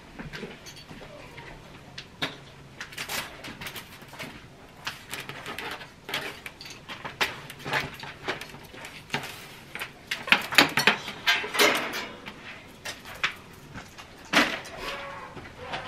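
Irregular clicks, rattles and rustles of a plastic string of holiday lights being pulled off kitchen cabinets and gathered by hand. The handling is busiest about ten to twelve seconds in.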